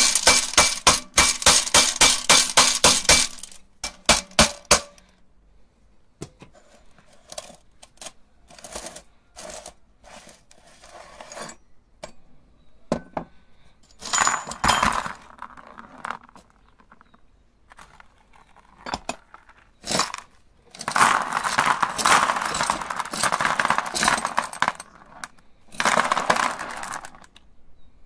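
Hammer rapping quickly on the head of an aluminium meat grinder, about five blows a second, then scattered clinks. Later the hand-cranked grinder crunches glass marbles to powder in two spells of grinding, a short one and a longer one near the end.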